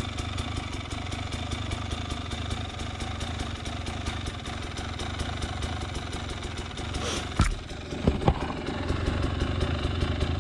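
KTM 300 XC-W two-stroke single-cylinder engine idling steadily. About seven seconds in there is a brief louder burst, followed by a few sharp knocks.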